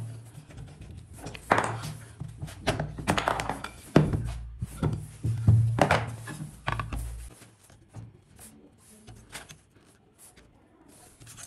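Wooden pieces knocked, handled and set down on a cutting mat: a run of sharp thunks and taps for the first seven seconds or so, then only faint, scattered clicks.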